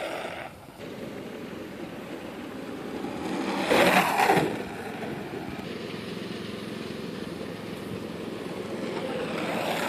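Longboard wheels rolling on asphalt, a steady rough noise that swells sharply for under a second as a crouched rider passes close by, about four seconds in.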